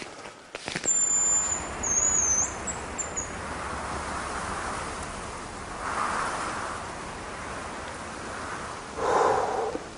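Thin, very high whistled notes: one longer steady note, then a few shorter wavering ones, followed later by soft rustling.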